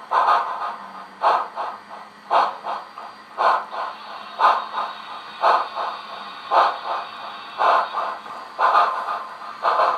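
HO-scale model of a Southern Pacific cab-forward articulated steam locomotive running slowly, its digital sound decoder playing steam exhaust chuffs through a small onboard speaker: a strong chuff about once a second with weaker ones between.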